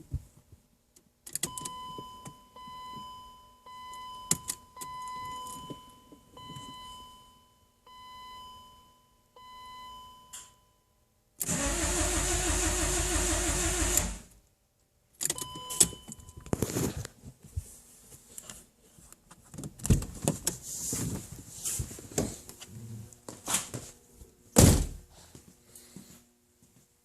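An electronic warning chime beeps several times, then the 1997 BMW 318i's four-cylinder engine is cranked by the starter for about three seconds and does not catch: the car won't start. Clicks and key rattles follow.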